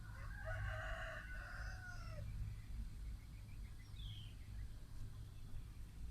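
One long animal call of about two seconds with several pitched layers, falling at the end, over a steady low hum; a brief high chirp comes about four seconds in.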